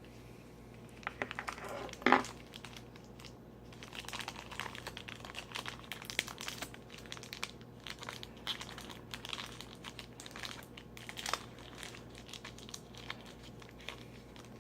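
Small plastic toy packaging being crinkled and torn open by hand, in irregular crackles with one sharp louder crackle about two seconds in and a dense stretch of crinkling through the middle.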